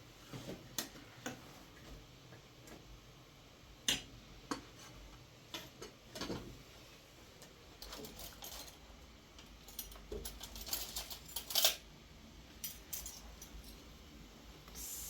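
Small household objects being handled: irregular clicks, knocks and light clinks, the sharpest about four seconds in and near twelve seconds.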